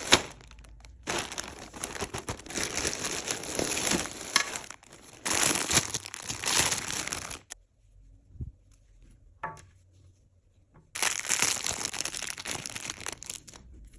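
Plastic packaging crinkling as it is handled and pulled open, in three long bouts with a quieter pause in the middle.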